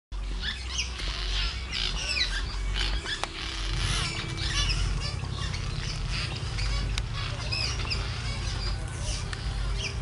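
Swallows twittering, a busy run of high, squeaky chirps one after another, over a low steady rumble.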